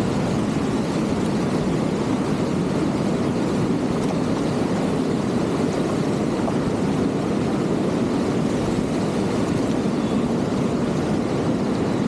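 Whitewater river rapids rushing steadily, the river running at about 12 m³/s.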